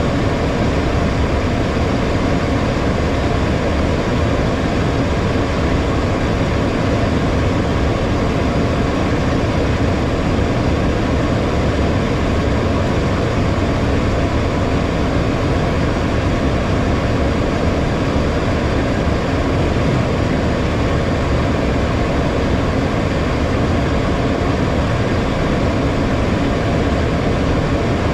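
Steady cockpit noise of a HondaJet in flight: an even rush of airflow mixed with the hum of its two GE Honda HF120 turbofan engines, heard from inside the flight deck.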